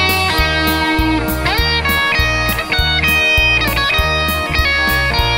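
Instrumental break in a rock song: an electric guitar plays a lead line with notes gliding in pitch, over a bass line and a steady drum beat.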